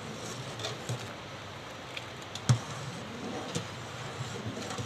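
A metal spoon stirring milk and ground rice in a large steel pot, with a few light clicks and one louder knock of the spoon on the pot about halfway through, over a steady low hiss.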